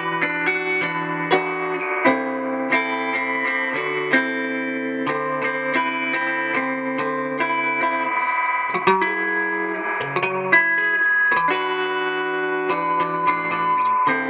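Fender Telecaster Thinline electric guitar played through a Hohner International 100-watt solid-state amp: a steady run of quickly picked single notes over low notes held for a second or more.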